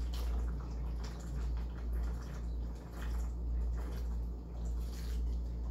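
A man gulping down a bottle of water without stopping, with regular swallows about twice a second over a steady low hum.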